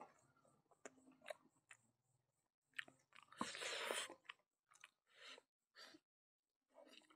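Chewing and mouth smacks of a man eating smoked pork and rice, in scattered small clicks, with a louder stretch of noisy chewing about three and a half seconds in.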